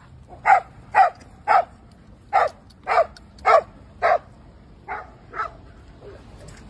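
A dog barking in play: seven short barks in a row, about two a second, then two softer barks after a brief gap.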